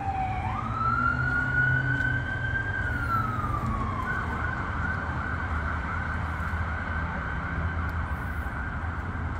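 Emergency vehicle siren: a slow wail that rises, holds and falls, then turns into a faster warble about four seconds in, over a steady low rumble.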